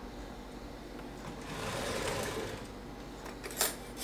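Kitchen tap water running into a stainless sink for a second or two, then a short sharp click near the end.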